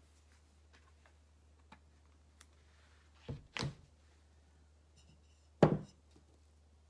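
Light clicks of handling, then two soft knocks a little past halfway as the plastic glue bottle is set down, and one louder thump near the end as the terracotta clay pot is set down on the hardboard work surface.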